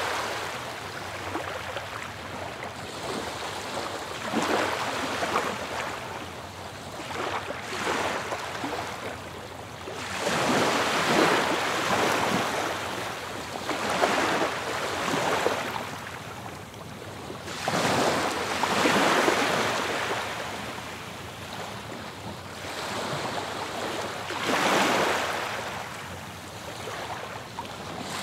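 Ocean waves washing onto a beach, each surge swelling and falling away every three to four seconds.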